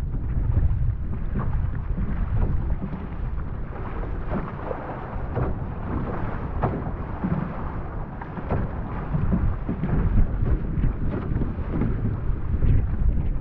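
Wind buffeting the microphone in a steady low rumble, over water splashing and slapping irregularly against the hull of a one-person outrigger canoe as it is paddled through wind chop.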